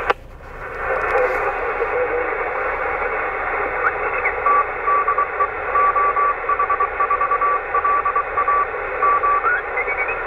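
VHF 2 m amateur transceiver in USB mode being tuned down the band: receiver hiss, with a Morse code (CW) signal keyed as a tone near 1 kHz through the middle and short rising whistles where signals sweep past the tuning. A sharp click right at the start, after which the hiss dips and builds back up.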